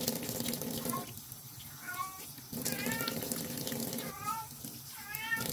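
A cat meowing over and over, about one short call a second, over running tap water with splashing.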